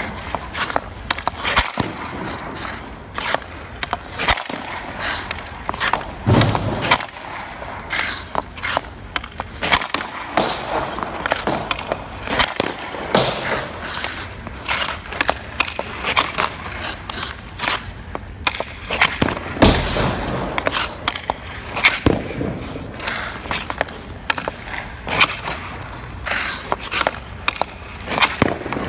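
Hockey drill on ice: sharp knocks of sticks striking pucks and pucks hitting the goalie's pads, coming every second or so at irregular intervals, mixed with skates scraping the ice.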